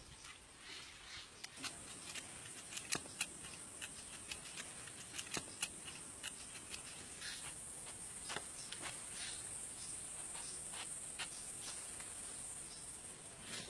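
Irregular sharp clicks and knocks, a few to several a second, over a steady high-pitched insect-like drone that grows a little louder about halfway through.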